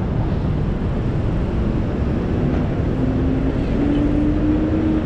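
Busy city street ambience dominated by the low rumble of traffic, with a hum that slowly rises in pitch from about halfway through.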